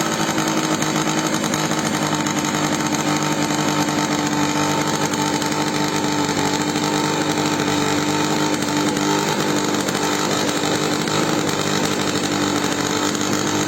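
Small model-aircraft engine of an RC plane running steadily at high speed, a continuous buzzing drone with an even pitch.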